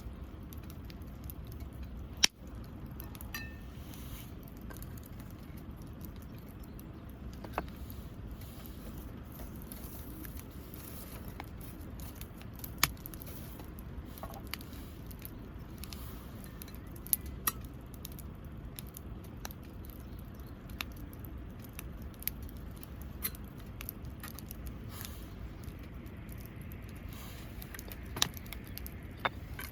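Wood campfire crackling, with sharp pops and snaps at irregular intervals over a steady low rumble; the loudest pop comes about two seconds in.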